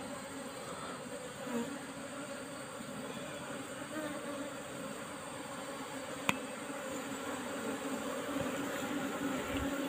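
A disturbed colony of Asian honeybees (Apis cerana), their nest opened and combs cut out, buzzing in a steady hum. A single sharp click sounds a little past the middle.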